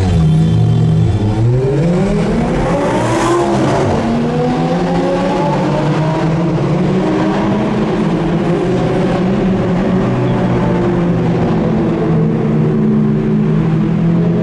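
Ferrari F430's 4.3-litre V8 heard from inside the cabin in a road tunnel, revving up hard under acceleration. Its pitch climbs, drops sharply at a gearshift about four seconds in, then holds a steady, slowly rising note in the next gear.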